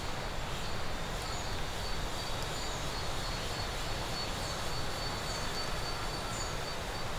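Forest ambience: a steady high insect drone with a few brief, high falling chirps, over a soft hiss and low rumble.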